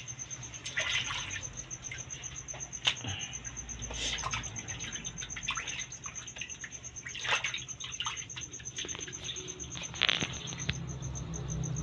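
Water splashing and sloshing in a basin as hands rinse and stir an octopus and crabs, in irregular splashes with a stronger one about ten seconds in. A cricket chirrs steadily in a fast high pulse behind it.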